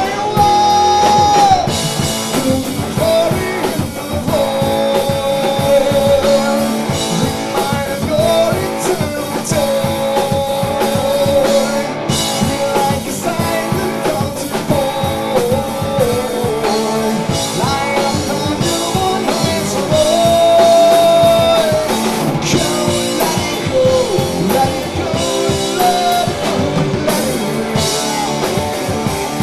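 Rock band playing live: a drum kit pounding steadily under guitar and a singing voice.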